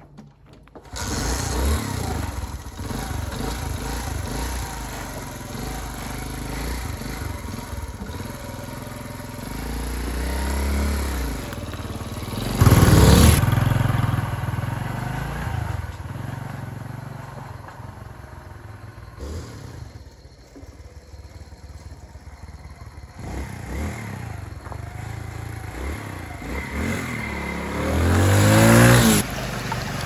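Motorcycle engine running as the bike rides along a stony dirt track, its revs rising around ten seconds in and again near the end, with the loudest moment about thirteen seconds in.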